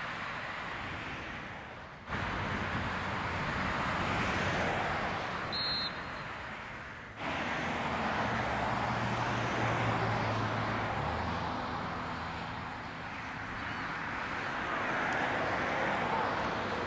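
Outdoor rushing noise, like wind on the microphone, swelling and fading and cutting in sharply twice. A low steady engine hum joins it about eight seconds in.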